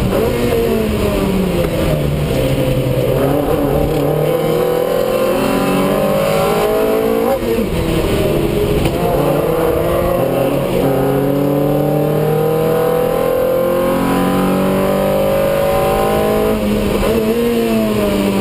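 Lotus race car's engine heard from inside the cockpit, falling in pitch as it slows in the first two seconds, then revving up through the gears several times, each climb broken by a gear change or lift.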